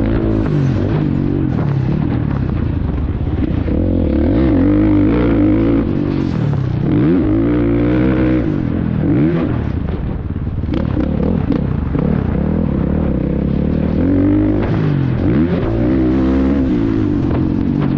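Two-stroke motocross bike engine heard close up from onboard, revving hard and backing off over and over, its pitch climbing and falling every second or two as the throttle is worked around the track.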